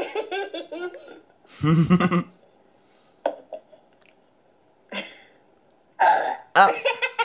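A girl's laughter trails off, then about two seconds in comes one loud, deep burp lasting about half a second. Near the end she breaks into loud laughter again.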